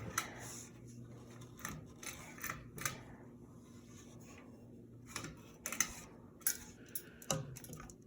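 Harbor Breeze Builders Best ceiling fan motor switched on at low speed and starting up, giving a faint low hum. Scattered light clicks and ticks sound over it.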